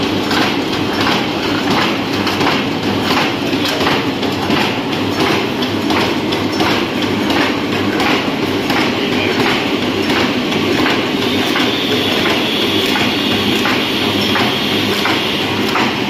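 Electric chicken cutting machine running and cutting a whole chicken into pieces: a steady motor hum with a regular clatter of about three knocks a second, and a high whine joining about eleven seconds in.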